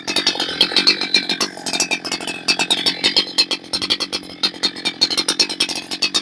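Holzfforma G288 90cc two-stroke chainsaw running at speed, its engine note rising and falling. The saw is untuned and running rich on 25:1 fuel.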